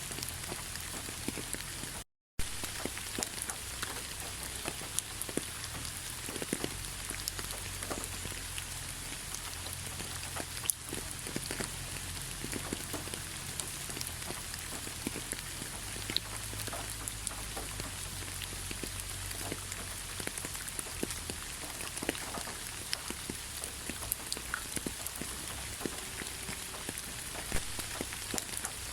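Steady rain falling, with many separate drops ticking in a continuous hiss. About two seconds in the sound drops out to silence for a fraction of a second.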